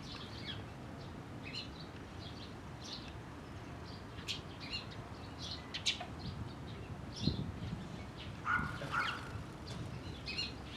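A flock of Eurasian tree sparrows chirping: many short, separate chirps at an irregular pace, with two lower notes about eight and a half seconds in.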